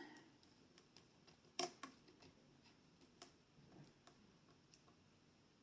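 Mostly near silence with a few faint, sparse clicks and ticks, the sharpest about a second and a half in: fingers picking at a sticker decal on a plastic doll.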